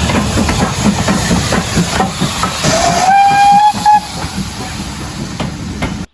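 Steam locomotive running loud with a busy rush of steam and rapid beats, and its whistle blown once about two and a half seconds in: a single note that rises slightly and holds for about a second, followed by a brief short pip.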